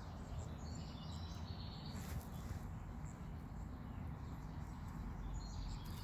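Birds chirping in short high notes, in two spells near the start and near the end, over a steady low rumble of background noise.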